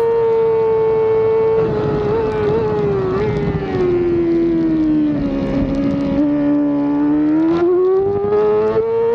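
Yamaha YZF-R6 race bike's inline-four engine running at high revs, heard from on board over rushing wind. The revs fall smoothly through the middle as the bike slows into a corner, then climb again as it drives out.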